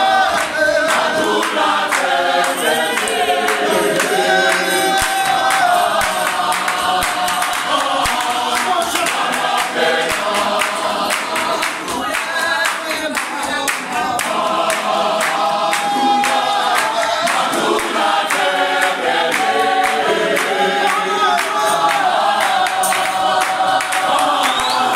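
A church choir of men and women singing an unaccompanied gospel song in parts, with hand claps keeping the beat.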